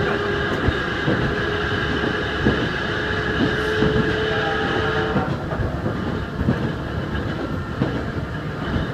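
Ohmi Railway 220-series electric car running at speed, heard from inside: its nose-suspended (tsurikake) traction motors hum at a steady pitch over the rumble and clatter of the wheels on the rails. The motor hum stops about five seconds in, leaving the wheel and rail noise.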